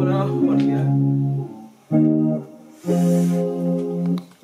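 Electric guitar playing sustained chords as a loop phrase into a sampler's looper. The chords break off briefly twice, and a short scratchy strum comes about three seconds in.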